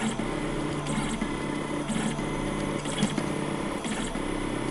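3D food printer running as it deposits Greek yogurt dots into a pyramid: the stepper motors give a steady whirring hum that shifts pitch as the head moves, with a short click about once a second.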